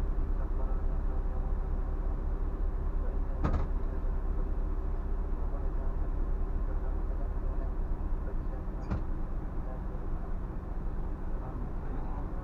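Scania bus diesel engine running with a steady low drone, with two short sharp knocks about three and a half and nine seconds in.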